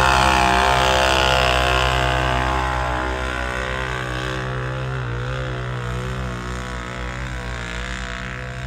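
Engine of a big-tire mud bog truck running hard, a steady drone with slight wavers in pitch that slowly fades over the few seconds.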